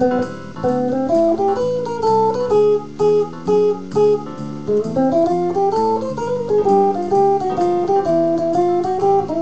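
Jackson electric guitar playing a jazz solo in chord-melody style: several notes sounding together, moving a few times a second.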